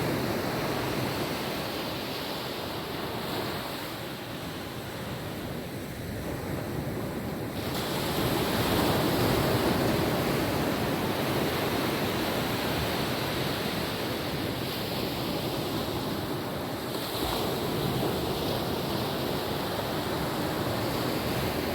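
Calm ocean waves washing onto a beach: a continuous rush of surf that eases off for a few seconds and swells again about eight seconds in.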